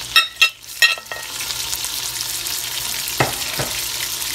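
Sliced onion, garlic and chopped green pepper sizzling in hot oil in a cast iron pot, a steady hiss. In the first second, three sharp ringing taps as a bowl is knocked against the pot to tip in the pepper, and two duller knocks a little past three seconds in.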